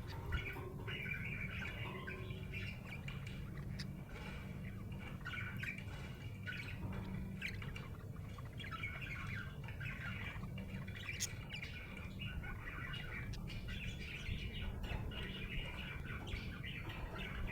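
Budgerigar (budgie) chirping and warbling in a continuous, varied chatter, over a low steady hum.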